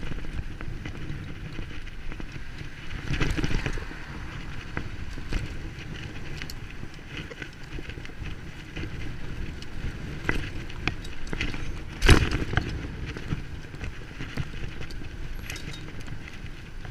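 Bicycle being ridden, with a steady rumble of tyres and many small clicks and rattles from the bike. A single loud knock about twelve seconds in.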